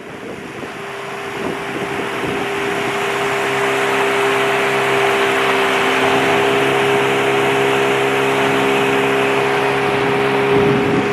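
Small outboard motor running at steady speed, pushing a boat across the water with a steady hum and the rush of the wake and wind. It grows louder over the first few seconds, then holds level.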